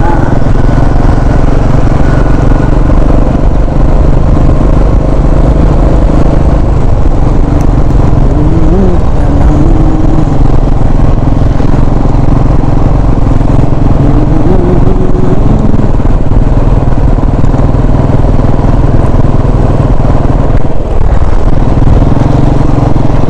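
Motorcycle engine running steadily while riding along, with road noise. Its pitch rises and falls briefly twice, about a third and two thirds of the way through.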